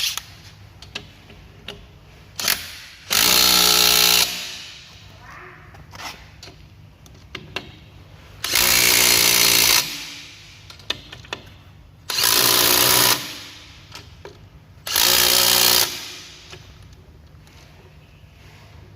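Makita DTW300 18V brushless cordless impact wrench hammering lug nuts tight on a car wheel, in four bursts of about a second each. Light clicks and knocks between the bursts as the socket is moved from nut to nut.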